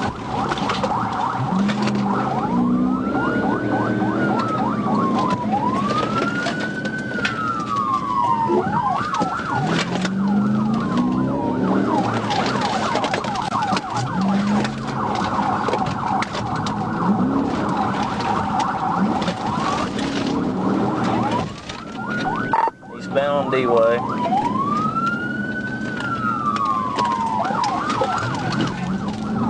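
Police car sirens during a slow-speed pursuit. A wail rises and falls every two to three seconds, alternating with a fast yelp, and at times two sirens overlap. About three-quarters of the way through, the sound briefly dips and switches to a rapid warble before the wail resumes.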